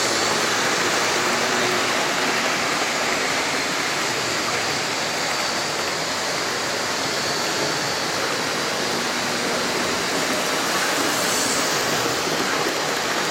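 OO gauge model trains running on the layout's track: a steady rushing rumble of metal wheels on the rails. It is a little louder near the start and again near the end, as wagons pass close.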